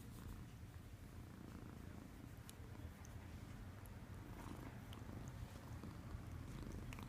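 Sleeping domestic cat snoring softly: a faint, steady low rumble.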